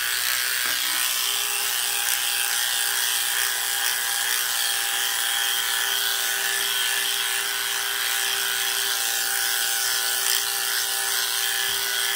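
Electric dog grooming clippers running with a steady hum while cutting through a Labradoodle's curly coat on the inside of the hind leg.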